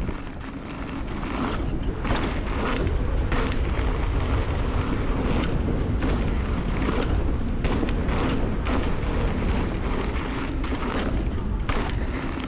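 Mountain bike descending a dirt trail at speed: heavy wind rumble on the action camera's microphone over knobby tyres rolling on dirt, with scattered clicks and rattles from the bike over bumps. It grows louder over the first second or two as speed builds.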